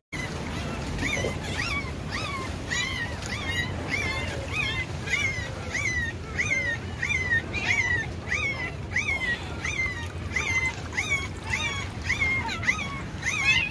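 A puppy crying in a long string of short, high-pitched whimpers, about two a second, each one sliding up and then down in pitch.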